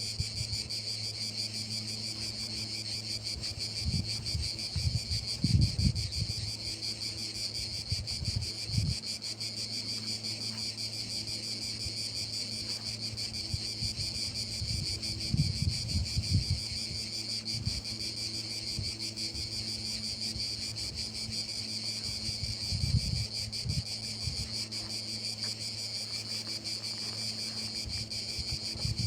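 Insects trilling steadily in a high, finely pulsed chirr, with a low steady hum underneath and a few brief low thumps at about 5, 16 and 23 seconds in.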